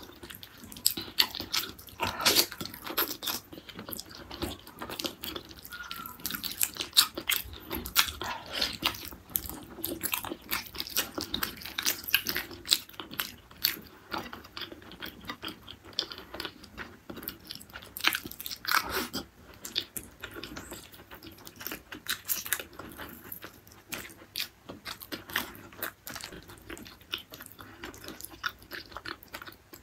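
Close-miked chewing and biting as a person eats gulai tunjang, a beef tendon curry, with rice, petai and sambal. The eating makes a dense run of short, irregular mouth clicks and crunches.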